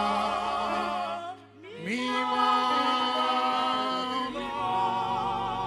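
A choir singing a Yoruba hymn a cappella, holding long chords with vibrato. The voices break off briefly about a second and a half in, then take up another long held chord.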